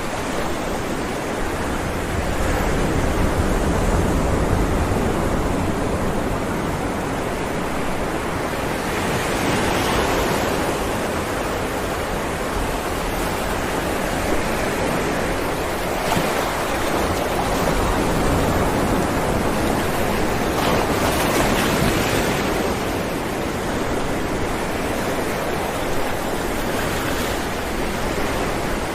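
Ocean surf breaking on rocks: a continuous rushing wash that swells and eases in surges every five or six seconds.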